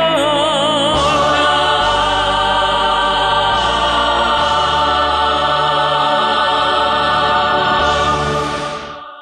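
Choir and male soloist singing the final held chord of a song over instrumental backing. The soloist's wavering note in the first second gives way to a long sustained chord, which fades near the end and cuts off.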